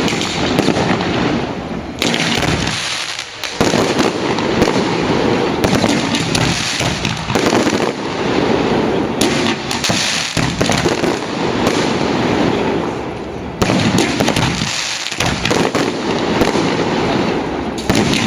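Fireworks display going off in quick succession: a dense, continuous run of bangs and crackles, easing only briefly twice.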